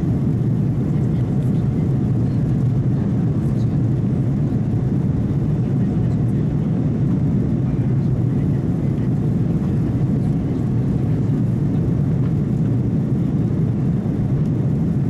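Steady cabin noise of an Airbus A330-200 climbing after take-off: an even, low rush of jet engines and airflow heard from inside the cabin.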